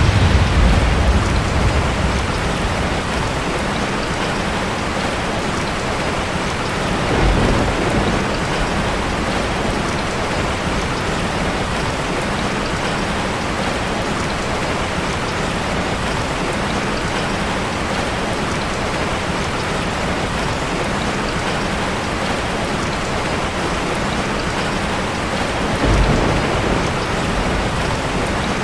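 Heavy rain falling steadily, with rolling thunder: a rumble fading away at the start, another about seven seconds in, and a third near the end.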